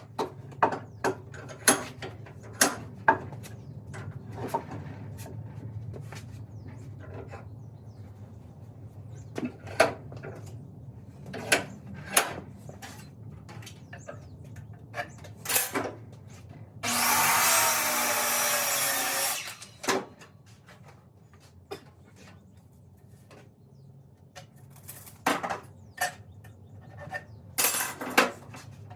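Sharp knocks of oak planks and tools being handled, with a power drill running once for about two and a half seconds past the middle, its pitch dropping a little as it takes load.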